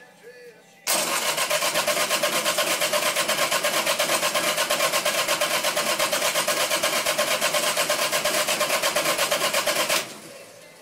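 Three-cylinder Yanmar diesel being cranked over on its electric starter for about nine seconds, an even rapid pulsing of about five beats a second, then cutting off abruptly without the engine settling into a run.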